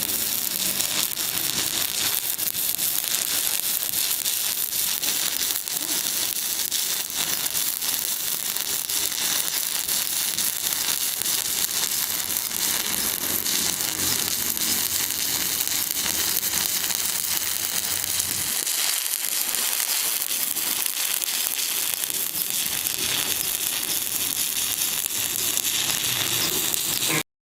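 Electric arc welding: a steady, dense crackle and sizzle that stops abruptly near the end.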